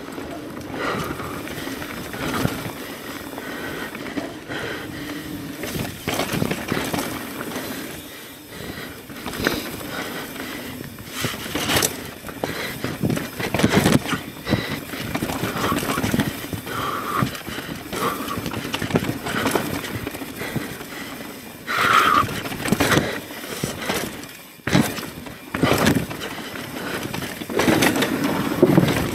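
Mountain bike ridden along a dirt trail: steady tyre and wind noise, with frequent knocks and rattles of the bike over bumps and a few brief squeals, the strongest about two-thirds of the way through.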